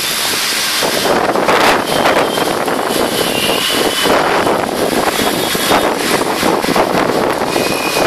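Cyclone-force wind rushing and gusting, buffeting the microphone, with faint high whistling tones that come and go.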